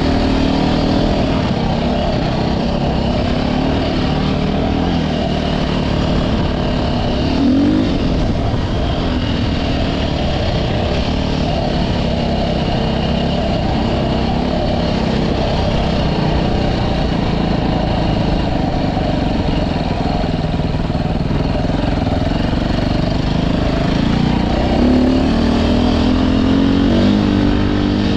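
A vehicle's engine running under way, heard from on board. It holds a steady pitch, with a brief rev about seven seconds in and a longer rise in pitch near the end.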